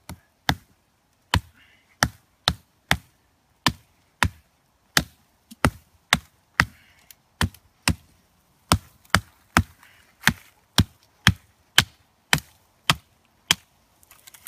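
Small Gränsfors Bruk Outdoor Axe chopping through the stem of a thin pine sapling: about two dozen sharp blows, roughly two a second, with a couple of brief pauses.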